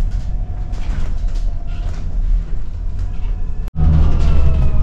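Shuttle bus engine and road rumble heard from inside the cabin, steady and low. After a brief cut near the end the rumble is louder, with a whine that slowly falls in pitch.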